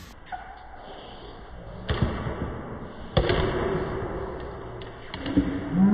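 Pickleball paddles hitting a plastic pickleball during a rally: sharp, separate pops, the two loudest about two and three seconds in, with fainter hits between them and later.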